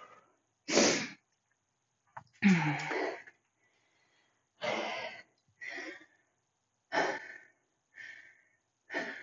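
A woman breathing hard after a heavy set: short, sharp breaths in and out about once a second, one of them a voiced sigh about two and a half seconds in.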